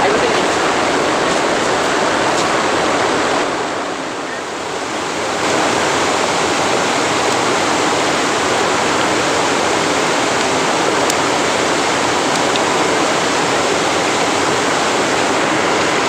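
Waterfall rushing steadily, loud and continuous, briefly quieter about four seconds in.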